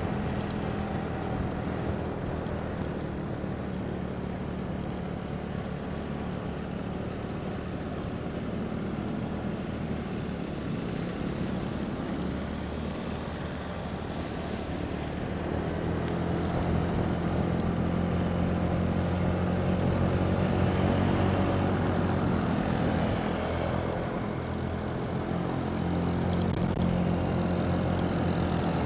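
Vehicle engine running steadily on the move, with road and wind noise; the engine note grows louder about halfway through, as if pulling harder.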